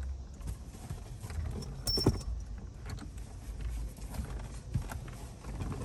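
Scattered small clicks and knocks of hand tools and metal parts being handled while a steering wheel is fitted and tightened, with one sharper click about two seconds in.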